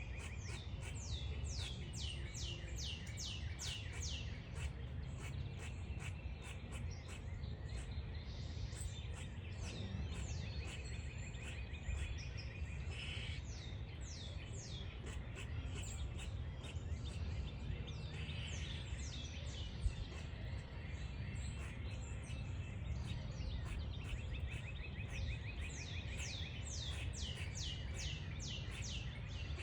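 Squirrel squeaking: runs of short, sharply falling high-pitched squeaks, about two or three a second, near the start and again near the end, over a steady low background rumble.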